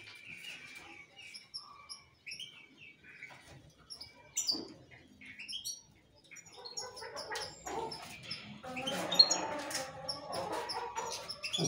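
Caged canaries and goldfinches chirping in short, scattered high calls, with a faint murmur underneath in the second half.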